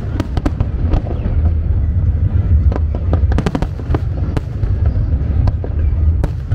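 Aerial fireworks display going off: many sharp bangs and crackles over a continuous deep rumble of bursting shells.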